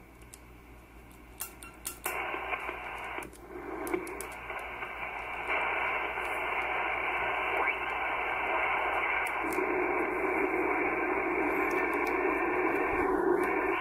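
Receiver audio from a Kenwood TS-430S HF transceiver. At first it gives almost nothing, having lost reception on 10 metres, one of the bands that drop out on this faulty radio. About two seconds in, a steady hiss of band noise and static comes in as bands are changed; it breaks off briefly once and grows louder around the middle.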